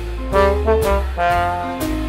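Live jazz combo playing: a trombone carries a stepping melody over upright bass notes and a drum kit with cymbal hits about every half second.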